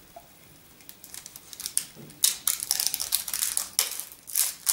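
Plastic blister packaging on a highlighter compact crackling and clicking as it is worked open by hand. It starts about a second in, and a quick run of sharp crackles grows louder from about two seconds in.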